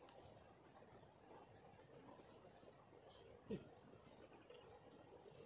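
Faint, high-pitched bird chirps: short buzzy notes, some opening with a quick downward slide, coming singly and in little runs of two or three. A single brief low sound comes about three and a half seconds in.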